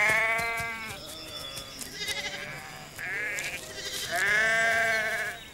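Sheep bleating: about four drawn-out, wavering calls, the loudest at the start and near the end, with a higher, quavering one in the middle.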